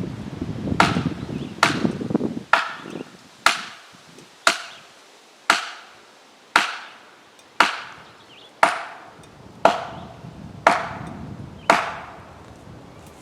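Felling wedge being driven into a spruce's back cut with steady hammer blows, about a dozen sharp strikes roughly one a second, each ringing briefly. A chainsaw idles under the first few strikes and then stops.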